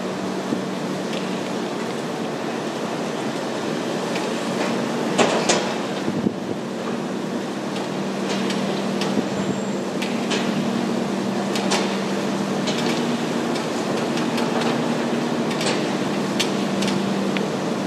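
Hydraulic excavator's diesel engine running under load with a steady hum while it digs wet soil and sludge from a pile, with scattered sharp knocks and clanks from the bucket and boom.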